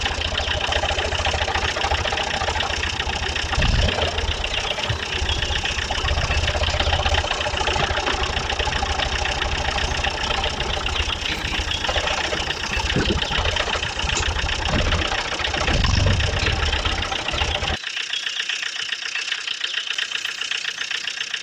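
Vehicle engine running steadily at idle with a fast, deep, knocking beat and a hiss above it. The deep engine beat cuts off sharply near the end, leaving only a higher-pitched noise.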